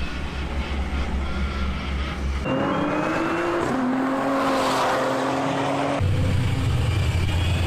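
Car engines running on a race circuit, in three clips cut together: a low steady engine drone, then a higher engine note that rises in pitch and holds as a car accelerates, then the low drone again near the end.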